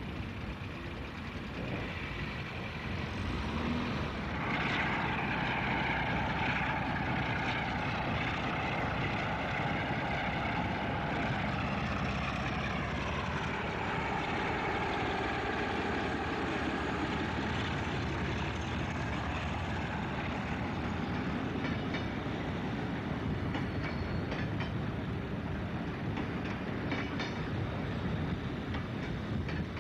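Diesel locomotive hauling a train of tank wagons past at close range. Its engine note comes up a few seconds in and drops in pitch as it passes, then the wagons' wheels clatter over the rail joints.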